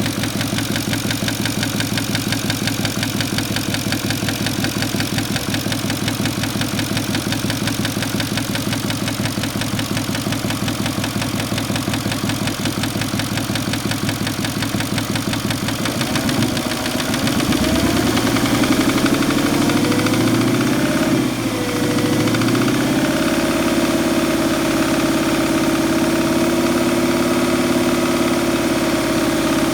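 Porsche Cayenne engine idling steadily, then from about halfway rising in speed, dipping briefly, and holding at a higher, steady speed.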